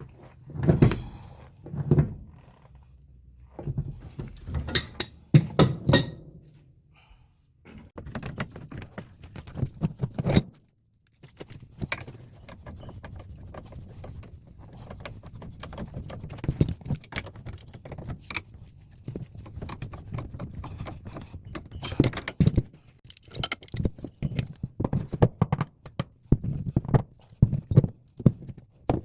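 Hand tools and black iron gas-pipe fittings clinking and knocking during pipe work, with handling noise between the strikes, which break off briefly about ten seconds in.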